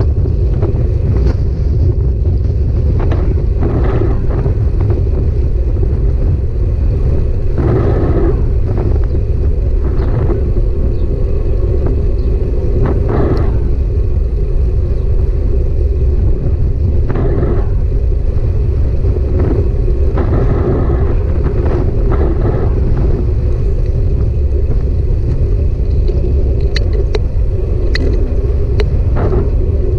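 Steady, loud low rumble of riding a bike, with short flares of rattle or noise every few seconds.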